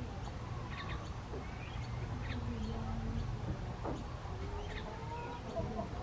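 Chickens clucking and assorted birds calling, with short chirps and calls scattered through, over a steady low background rumble.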